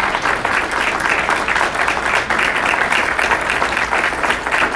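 Audience applauding: many people clapping at once, a dense, steady sound.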